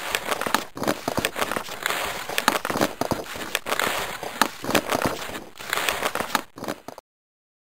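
Dense crackling, crinkling noise packed with small sharp clicks, which cuts off abruptly about seven seconds in.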